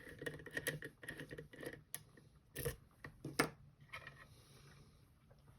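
Small metal clicks and rattles of lock-picking tools being handled and set into a pin tumbler padlock held in a vise, with two louder knocks near the middle.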